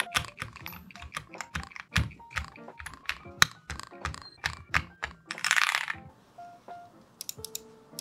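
Mechanical keyboard keystrokes on KTT Macaron Yellow linear switches (POM stem, PC top, PA bottom housing) in an AKKO SPR67 kit: keys pressed one at a time in quick, irregular succession, each a sharp clack. A short rushing noise comes a little past halfway, then a few sparser clicks, all over light background music.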